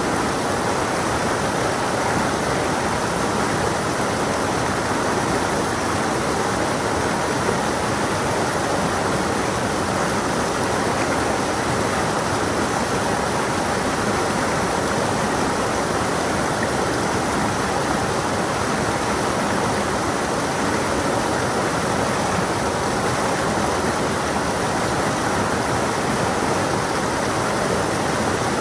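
A rocky stream flowing and babbling steadily, with no change in level.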